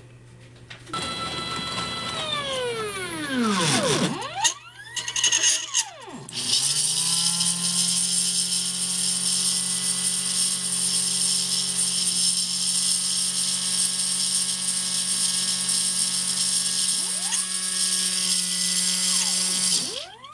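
Home-made CNC router's stepper motors whining, their pitch falling and rising as the axes slow and speed up. About six seconds in, the spindle, a 540-size brushed RC motor switched by a relay, comes up to speed and runs steadily with a high hiss. Near the end more stepper moves rise and fall over it, and the spindle cuts off suddenly.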